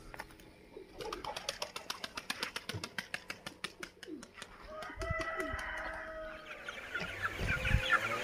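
Chickens: a quick run of sharp clicks, about seven a second, then from about five seconds in drawn-out pitched calls that build into clucking near the end.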